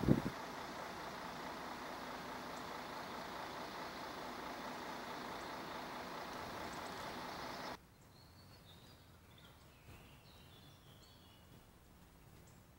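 A steady outdoor rushing noise cuts off abruptly about eight seconds in. After it, quiet outdoor ambience with a few faint songbird chirps.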